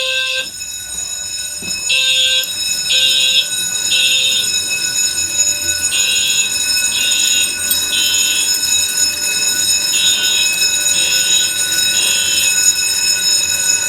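Fire alarm system notification appliances sounding together. Horns blast in the code-3 temporal pattern: three half-second blasts, then a longer pause, repeating. Steady high-pitched tones ring continuously underneath.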